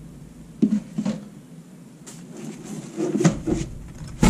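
A series of light knocks and clatters of hard objects being handled, starting just over half a second in and coming thickest in the second half.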